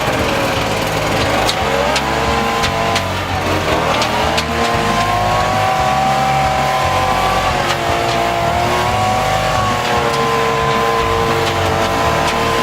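Leaf blower running hard, its motor pitch dipping and climbing again as it is revved up and down.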